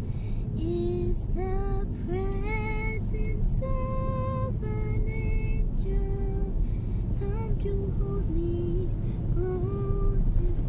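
A high voice singing a slow melody in long held notes, sliding up into some of them, over the steady low rumble of a car driving.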